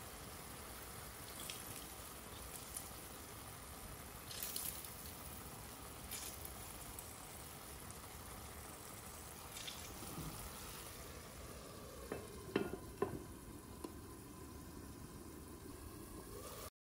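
Food sizzling steadily in a frying pan, with a few light scrapes and clicks of a utensil. A couple of sharper knocks come about twelve to thirteen seconds in.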